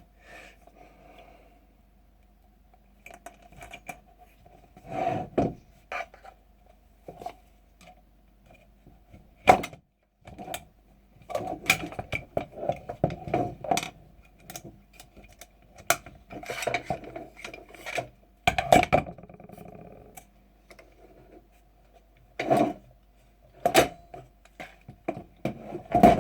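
Irregular clicks, knocks and scrapes of the hard parts of a G&G GR25 airsoft electric rifle as it is handled and stripped down, with a few louder knocks spread through.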